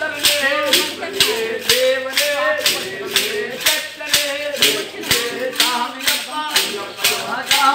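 A group singing an Ayyappa devotional chant together, with steady hand-clapping keeping time at about two claps a second.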